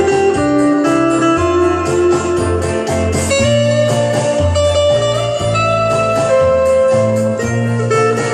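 Electric guitar, a Telecaster-style solid-body, playing a clean single-note melody over a backing track with a steady pulsing bass line.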